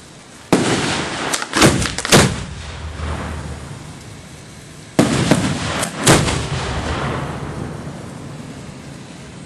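Fireworks shells going off from ground mortar racks: a sudden loud bang about half a second in, then a quick run of sharp bangs, and another cluster of bangs about five seconds in, each fading away.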